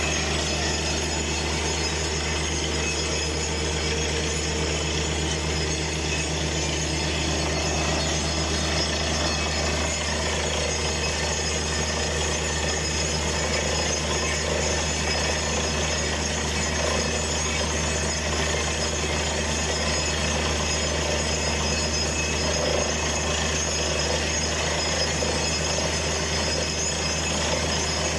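Truck-mounted borehole drilling rig running at full work, with compressed air blasting water and rock cuttings up out of the hole around the drill pipe. A steady, unbroken machine noise: a constant low engine drone under a rushing hiss of air and spraying water.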